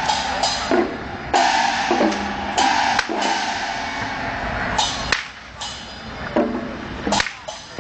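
Chinese temple percussion of drums and cymbals playing, cut through by loud, sharp cracks at irregular intervals, about one every second or so, from long ritual whips being swung.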